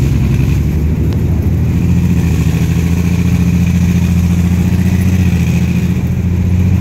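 BMP-1 infantry fighting vehicle's UTD-20 V6 diesel engine running steadily as the tracked vehicle drives, a low engine drone that grows stronger after about two seconds.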